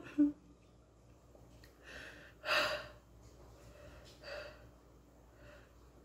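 A woman breathing hard and catching her breath after a fit of laughing, with a handful of short gasping breaths, the loudest about two and a half seconds in.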